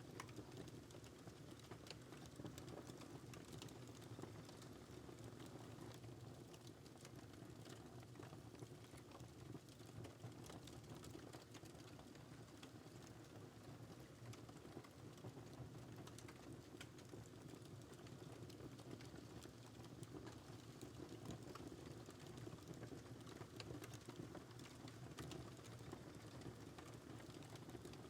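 Wood fire crackling in a fireplace, faint: a steady low rumble of burning with scattered small crackles and pops, and one louder pop near the end.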